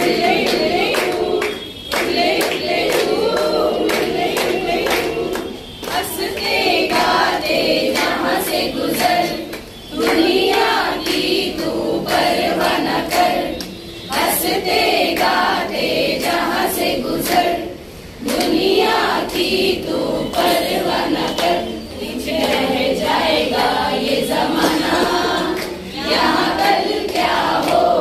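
A group of women singing together, in phrases of about four seconds with brief breaks between them.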